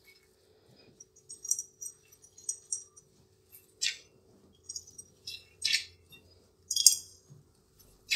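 Gloved hands squeezing and kneading crumbly chocolate chip cookie dough in a cut-glass bowl: short, irregular crinkly rustles and light clinks, a few a second, the loudest about seven seconds in.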